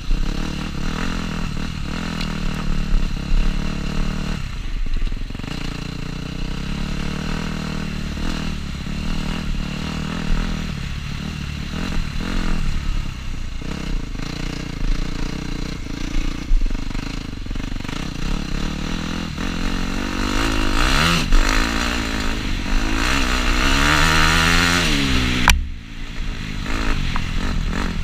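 Dirt bike engine running as it is ridden around a dirt track, heard from a helmet camera, the revs rising and falling with the throttle. Near the end the revs climb steadily for several seconds, then cut off abruptly before the engine picks up again.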